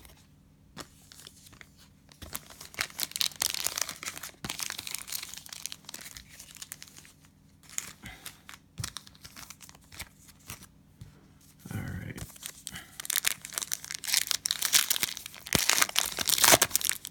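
Cellophane wrapper of a trading-card pack being torn open and crinkled, in two spells of crackling: from about two to five seconds in, and again from about thirteen seconds in to the end.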